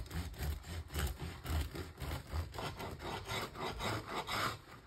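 A knife sawing back and forth through a seeded wholegrain sourdough loaf to cut a slice, in steady strokes about two to three a second.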